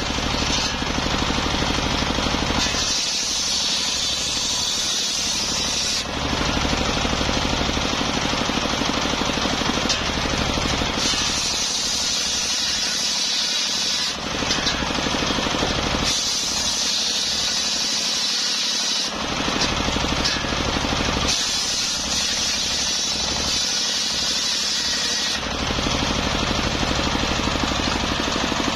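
Belt-driven table circular saw powered by a stationary engine, ripping a sengon log into boards. The engine runs steadily throughout, and four times, for three to four seconds each, the blade bites through the wood with a high hissing whine.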